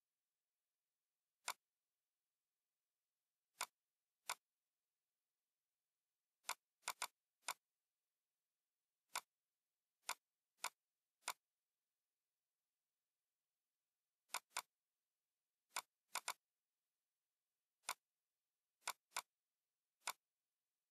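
Computer mouse clicks: about twenty short, sharp clicks at irregular intervals, several in quick pairs, with dead silence between them.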